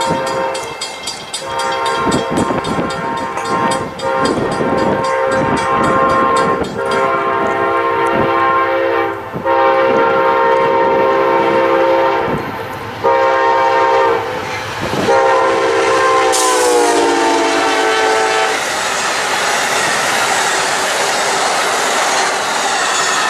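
Locomotive air horn sounding a chord of several notes in a string of long blasts with short breaks, its pitch dropping as the locomotive passes close by about three-quarters of the way through. The horn then stops and the train's cars roll past with a steady rumble and wheel clatter.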